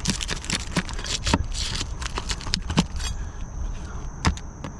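Irregular clicks, knocks and scraping of roofing nails and asphalt shingles being pried out by hand around a plumbing vent pipe.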